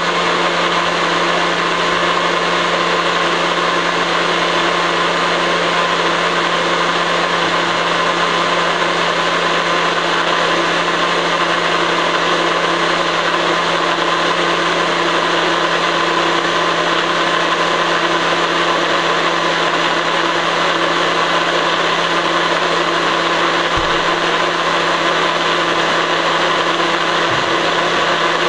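Electric blender running steadily at one speed, a loud, even motor whir.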